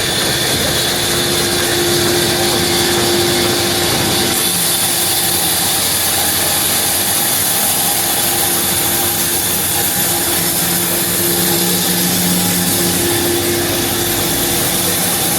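Sawmill saw machinery running steadily, with a held mechanical tone. A strong high hiss sets in about four seconds in and holds until near the end.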